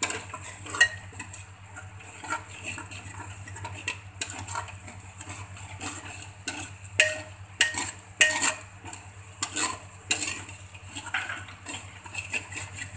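Metal spoon scraping and clinking against a hammered metal pot with irregular strokes, stirring onion and ginger-garlic paste frying in ghee, with a light sizzle underneath.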